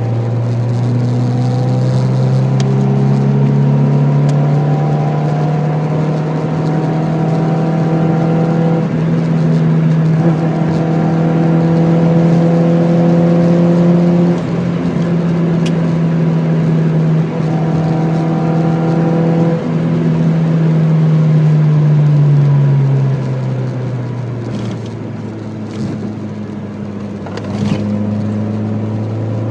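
Mk5 Ford Fiesta 1.3's four-cylinder engine running through a Hoffman aftermarket exhaust: the revs rise about two seconds in, hold high with a few brief dips for some twenty seconds, then drop back lower near the end.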